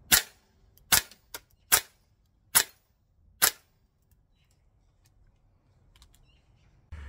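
An HK416-style gas blowback airsoft rifle firing five single shots in semi-automatic, about one every 0.8 seconds. Each shot is a sharp crack of the gas blowback action cycling, and a faint click comes between the second and third shots. The firing stops about three and a half seconds in.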